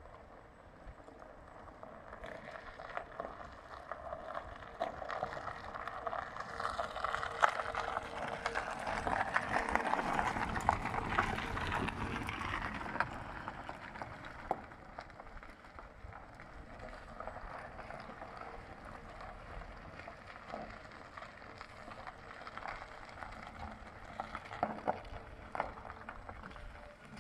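BAIC EU5 R500 electric car rolling slowly over gravel and grass with no engine note, its tyres crunching and popping small stones. The sound grows louder as the car comes close about ten seconds in, then fades as it moves off and stops.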